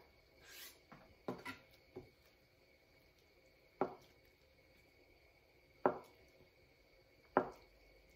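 Chef's knife cutting down through a block of tofu and knocking on a plastic cutting board: about six sharp taps, unevenly spaced.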